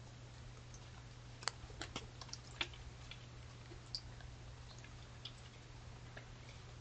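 Steady low electrical hum from a trail camera recording at night, with scattered faint clicks and ticks, a cluster of sharper ones between about one and a half and four seconds in.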